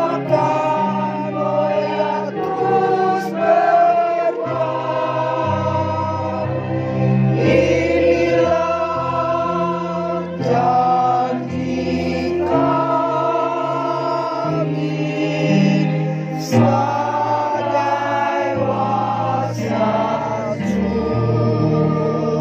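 Women's choir singing a slow song, each sung note held for a second or two over a steady low accompaniment.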